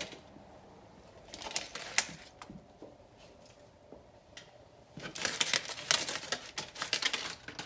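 Crumpled aluminium foil crinkling and crackling as hands pick ham pieces off it, with a few scattered clicks at first and a quick run of crackles over the last few seconds.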